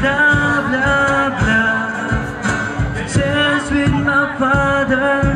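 Live acoustic band playing: strummed acoustic guitars keep a steady rhythm under a sung melody.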